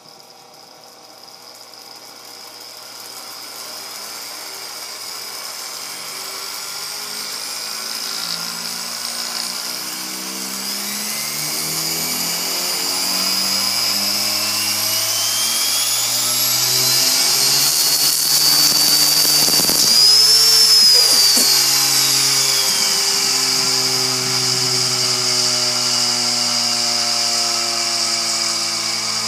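Homemade mini lathe's small brushed electric motor and belt-driven spindle being run up in speed. The whine starts faint and climbs steadily in pitch and loudness for about twenty seconds, then eases a little and holds at high speed.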